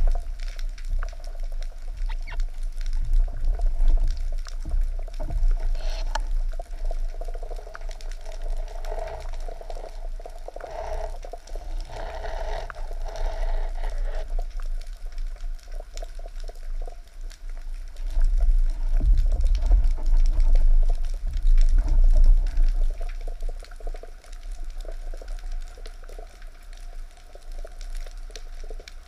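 Underwater sound picked up by a submerged camera: low rumbling water movement with crackling bubbles. A humming tone runs through the first half and fades out about halfway through, and the rumble swells for a few seconds after that.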